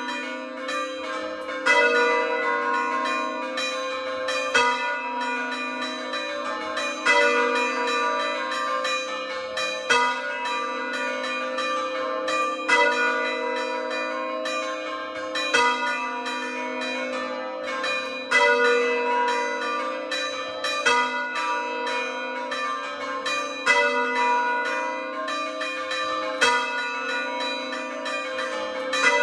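A peal of four hand-rung church bells, the largest an A3, struck in quick succession in a repeating pattern. A louder stroke stands out about every three seconds.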